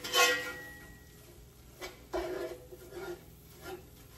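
A metal utensil strikes a cooking pan, with a short ringing tone that fades over about a second, followed by a few light taps and scrapes.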